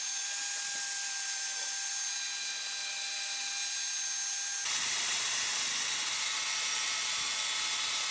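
Electric drill spinning a wire cup brush against a cast iron teapot lid, scrubbing off rust: a steady motor whine over a scratchy wire-on-metal hiss. The sound changes abruptly about four and a half seconds in.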